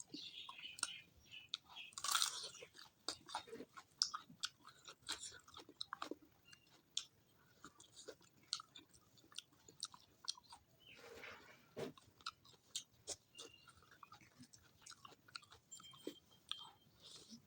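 Close-miked eating: a person chewing food with many small wet clicks and crunches, irregular in rhythm. A louder crunchy bite comes about two seconds in, and another burst comes a little past the middle.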